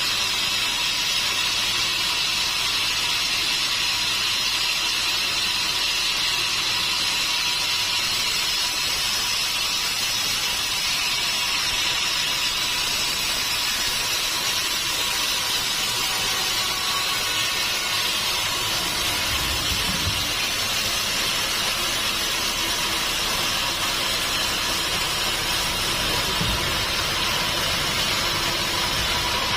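Sawmill saw running steadily through a mahogany log, a continuous high-pitched rushing noise with a faint steady tone under it, and a couple of low thuds in the second half.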